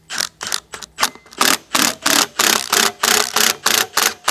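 Cordless impact wrench driving a puller's forcing screw in a quick run of short bursts, about three a second, as the puller presses the two halves of a cast gearbox case apart.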